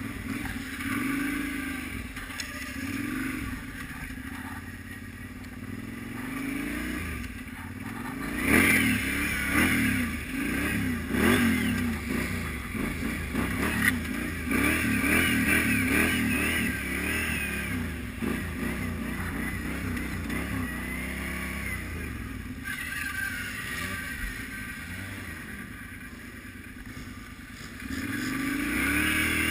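ATV engine revving up and down again and again as the quad drifts on icy snow, busiest and loudest from about 8 to 22 seconds in, easing off, then revving up again near the end.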